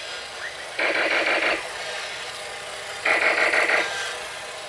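Battery-powered toy walking robot running, its newly replaced small speaker twice playing a short, loud, rattling sound effect about two seconds apart, over the steady whir of its walking motor.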